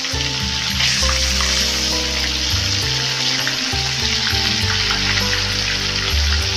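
Whole tilapia fish frying in hot oil in a kadhai over a high flame: a steady, dense sizzle. Background music with sustained low notes plays underneath.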